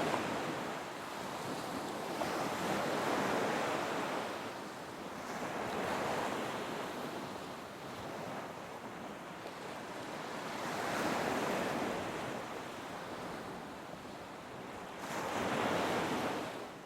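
Ocean surf breaking and washing, swelling and easing every few seconds.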